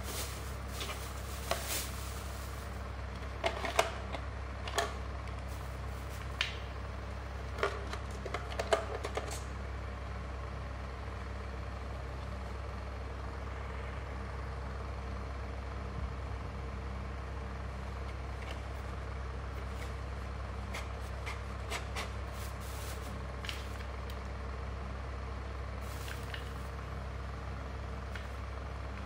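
Plastic wrapping crinkling and hard plastic parts of a mini fan-cooler clicking and knocking as they are unpacked and handled, busiest in the first several seconds, with a few more clicks later on. A steady low hum runs underneath.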